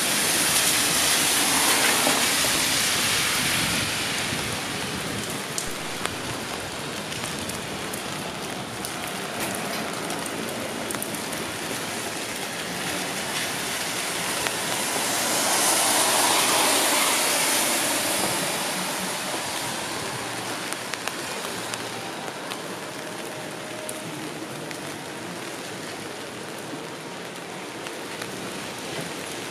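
Steady rain falling, with scattered drop ticks. A louder rushing noise swells and fades twice, once near the start and once about halfway through.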